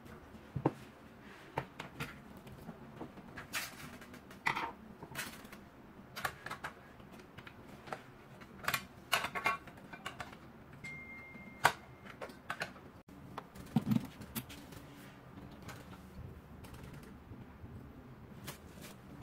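Scattered plastic clicks and knocks as a Kenwood sandwich maker's housing and cooking plates are handled and fitted. There is a short high beep about eleven seconds in and a dull thump a few seconds later.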